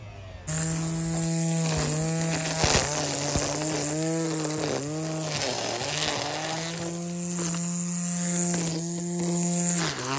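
Hart 40-volt cordless string trimmer's electric motor spinning up about half a second in and running at a steady high whine, with a constant hiss of the whirling line. Its pitch dips briefly several times as the line bites into grass and weeds.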